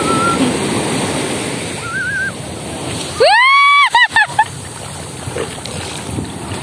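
Sea surf washing on the beach, with short high voices and one loud high-pitched squeal about three seconds in, rising and falling, followed by a few short broken cries.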